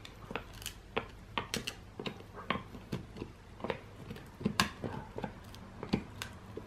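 Husky gnawing a dried bull pizzle (bully stick): irregular sharp clicks and crunches of teeth on the hard chew, about two or three a second.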